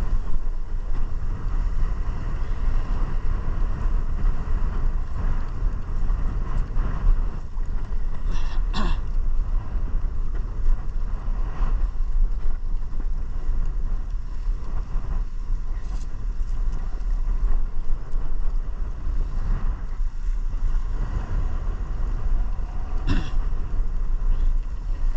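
Small outboard-powered fishing boat under way at speed across open-ocean chop: a steady rush of wind on the microphone and water spray over the outboard motor's running. A few sharp knocks come through, about 9, 16 and 23 seconds in.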